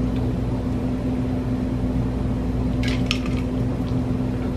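Steady low hum of a running household appliance, with a few small faint clicks about three seconds in.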